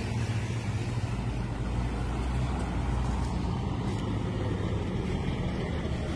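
Diesel engine of a Marcopolo double-decker coach running with a steady low rumble as the bus moves past.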